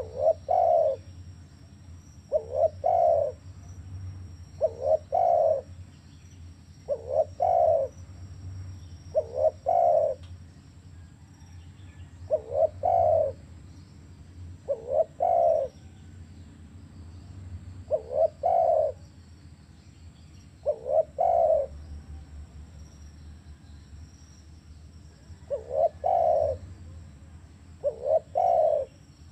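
Spotted dove cooing: a short phrase of a few low coos, repeated about every two to three seconds, with one longer pause about three-quarters of the way through.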